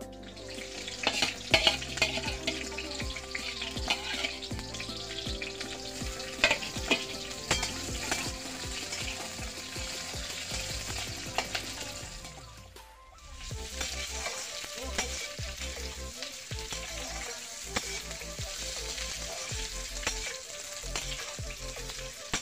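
Chopped food sizzling as it fries in oil in a metal kadai (wok), stirred with a perforated metal spoon that clicks and scrapes against the pan. The sizzle fades briefly about halfway through, then picks up again.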